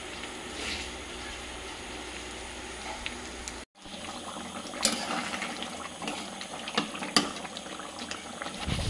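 A kadai of pork and potato curry on the stove. First comes a steady sizzle of the frying meat. After a sudden break it changes to the bubbling of the curry simmering in added water, with a few sharp clicks of the metal spatula against the pan.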